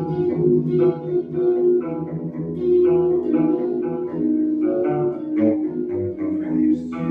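Instrumental break of a song: guitar plucking a run of notes over steady bass notes, with no singing.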